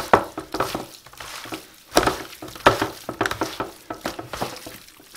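Gloved hands squelching and slapping oil- and spice-coated raw chicken breasts while mixing them in a roasting tray: irregular wet squishes with occasional knocks against the tray, loudest about two seconds in.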